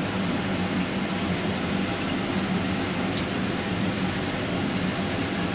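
Wire brush scrubbing scale off a forged mild-steel bracket: a rapid, repeated scratchy rubbing over a steady hum.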